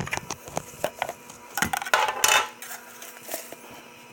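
A plastic Sea-Monkeys kit container and its blue lid being handled: a run of sharp clicks and knocks, with a short rustle about two seconds in.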